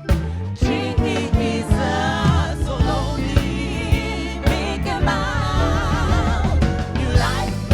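Live band music with a steady drum beat and bass, and a singer holding wavering notes with vibrato.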